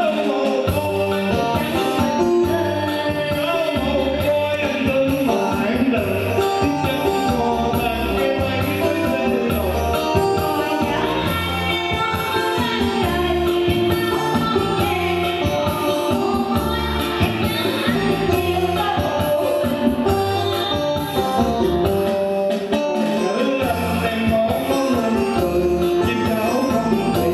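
A man and a woman singing a duet through handheld microphones and a PA, accompanied by an electronic keyboard with a steady beat.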